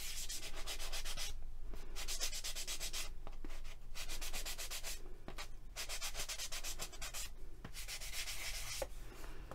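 Micro-fine foam-backed sanding pad rubbed in small circles over a polymer clay piece, in quick, even scratchy strokes with several short pauses.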